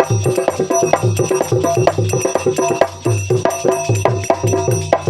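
Instrumental passage of a folk bhajan: a steady tamura drone under fast clattering percussion, with a regular drum beat.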